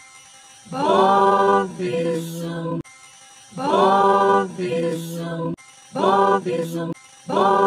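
A short cartoon voice clip looped over and over, stacked with pitch-shifted copies of itself so it sounds like a chanting choir. Two long repeats are followed by shorter, choppier ones coming faster in the second half.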